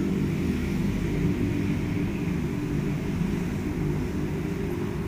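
A steady low mechanical hum with several pitched lines, unchanging throughout.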